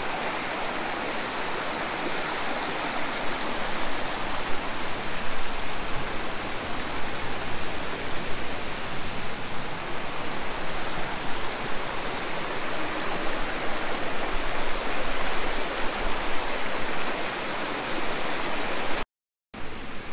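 Waterfall pouring steadily: an even, dense rush of falling water. It breaks off to silence for a moment near the end.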